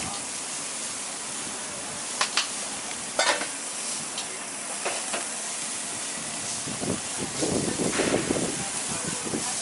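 Steady sizzle of food frying on a street-stall griddle, with a couple of sharp clicks about two and three seconds in, and rustling of paper near the end as a wrap is rolled up in it.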